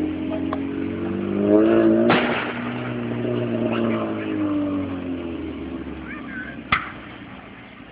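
A motor vehicle engine revs up and then fades away as it drives off. Firework bangs come about two seconds in and again near the end.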